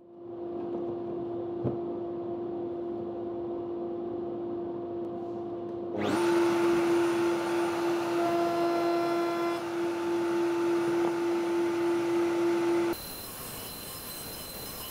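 Triton router mounted under a router table, spinning up and running at high speed with a steady whine while its bit cuts along the edge of a wooden board. The sound is louder from about six seconds in and changes abruptly near the end.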